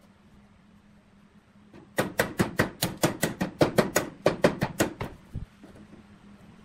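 Hand hammer striking a wooden lathe blank in a rapid series of about seventeen sharp blows, roughly six a second for some three seconds, then one last blow.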